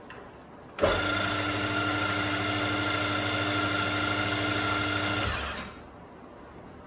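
Geared-head mill-drill spindle running in high gear. It is switched on about a second in with a sharp start, runs steadily with an even hum and a higher whine for about four and a half seconds, then is switched off and spins down.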